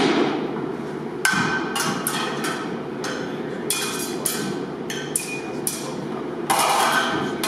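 Sidesword and buckler clashing in sparring: sharp, ringing metal clanks, some ten in all, in quick runs starting about a second in and again around the middle, with a loud one near the end.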